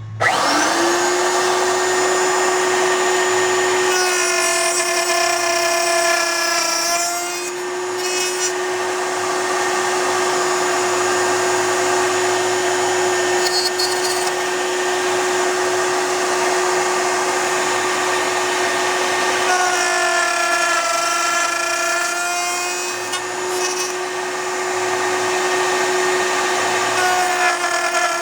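Table-mounted router spinning up and running at a steady high whine. Three times, about 4 s in, about 20 s in and near the end, the sound changes and the pitch sags slightly as the bit cuts box-joint slots into a wooden board.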